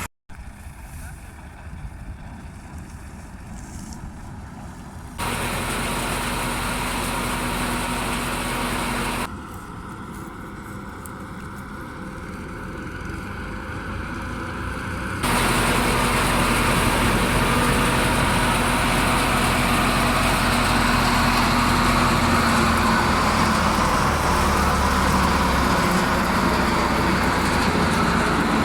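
Tractor-driven wheat thresher and tractor engine running steadily. The sound jumps abruptly in level and pitch about 5, 9 and 15 seconds in, and is loudest from about 15 seconds on.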